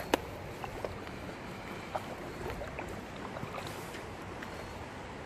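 Creek water running steadily over a shallow bed, with a few faint small knocks.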